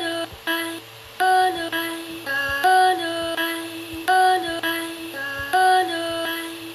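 A short synthesizer melody from a sound pack looping in a music program: a phrase of clipped, stepping notes with their release turned down, repeating about every second and a half.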